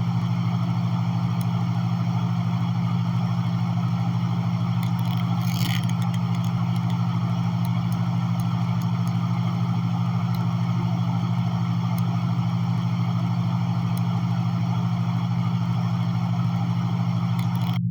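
A steady low hum with an even hiss over it, and a brief faint chirp about six seconds in.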